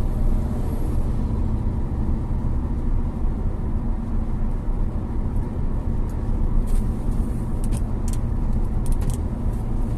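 Steady road and engine noise inside a car cruising on a highway, with a few light clicks in the second half.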